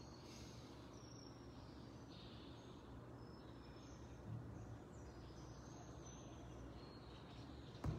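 Quiet room tone with a steady low hum and scattered faint high bird chirps, a soft bump about halfway through and a sharp click near the end.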